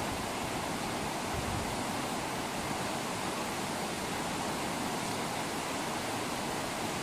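River rapids rushing over a rocky riffle: a steady, even rush of water with no breaks.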